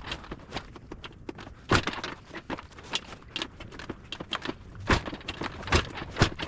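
Repeated kick-start attempts on a flooded 1992 Honda XR200R dirt bike: sharp, irregular thuds and clatter of the kick lever as the engine turns over without catching.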